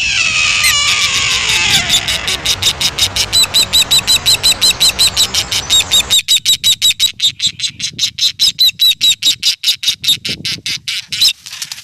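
A red-tailed hawk's scream: one long, falling cry. Then a bald eagle's chattering call, a rapid run of high, thin chirps, about six a second, that stops shortly before the end.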